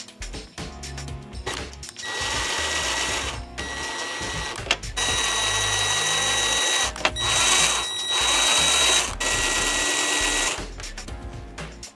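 Ryobi cordless drill/driver whining in several runs of a second or two each, driving screws through a speaker's mounting ring into a carpet-covered wooden speaker box. Background music plays underneath.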